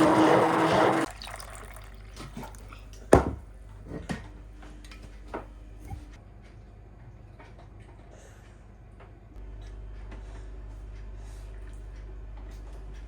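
Running water that stops about a second in, followed by a few sharp knocks and clinks, the loudest about three seconds in, over a low steady hum.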